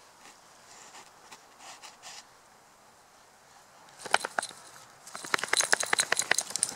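A dog shaking itself off: a rapid rattle of ears and coat flapping, a short burst about four seconds in, then a longer, louder one near the end.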